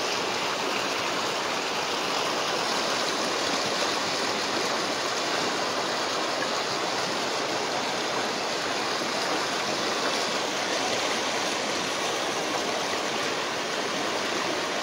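Muddy Manu River floodwater rushing fast over flooded land in a strong current, a steady, churning roar of water.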